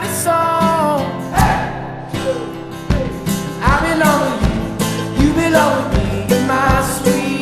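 Pop song with a singing voice over guitar and a steady beat.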